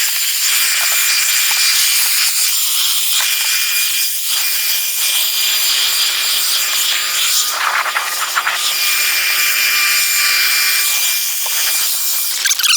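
Leaf blower running steadily, a loud rush of air with a thin high whine, blowing snow off a car; it cuts off suddenly at the end.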